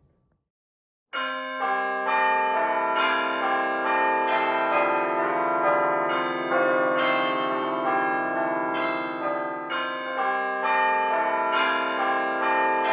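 Church bells ringing, several bells struck one after another and overlapping as a peal; they start suddenly about a second in after complete silence.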